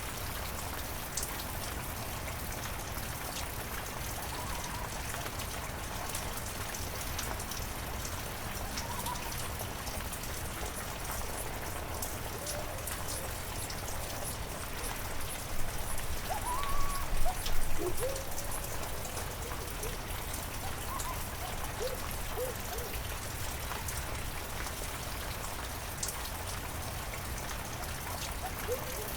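Steady heavy rain falling, with scattered sharp drip ticks. A few short pitched calls rise above it, loudest in a burst a little past the middle.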